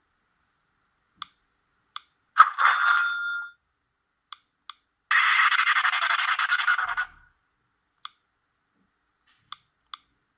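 A Sony Ericsson W580i mobile phone playing ringtones through its small speaker. A short tone comes about two and a half seconds in, then a fluttering telephone-bell ring lasting about two seconds, with brief blips scattered between them.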